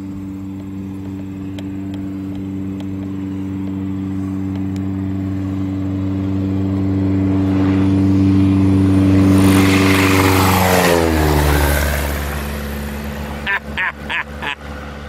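Single-engine floatplane's propeller engine on a low pass. A steady drone grows louder as the plane approaches, peaks about ten seconds in as it goes by, then drops sharply in pitch as it flies away.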